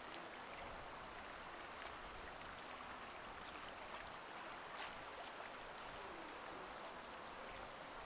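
Faint steady wash of moving water, with a few faint ticks scattered through it.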